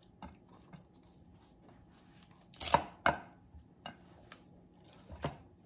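Kitchen shears snipping through red snapper fins and tail: a handful of sharp snips and clicks, the loudest two close together about three seconds in.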